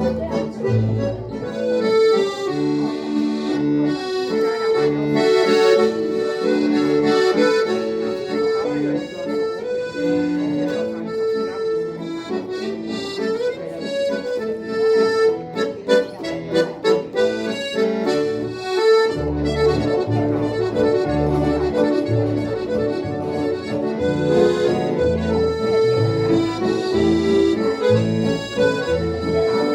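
A live band plays instrumental jazz, with an accordion carrying the melody over sustained chords. About two-thirds of the way through, a steady bass line comes in strongly underneath.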